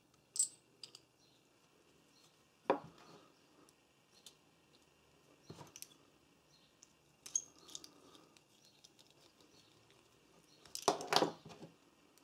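Small metal parts of a socket ratchet head handled and fitted back together by hand: scattered light clicks and taps, with a longer run of rattling clicks near the end.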